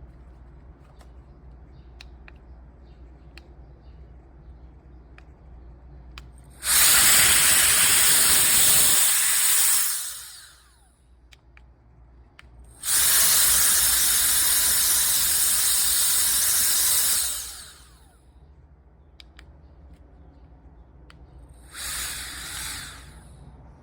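Electric air duster with a brushless motor, switched on and blowing in three bursts: two of several seconds each and a shorter, quieter one near the end. Each burst is a high, hissing rush of air that starts abruptly and winds down as the motor spins down.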